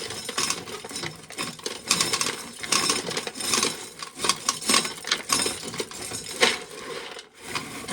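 Dry ear corn clattering: ears and loose kernels knocking and rattling together in a dense, irregular stream of sharp clicks.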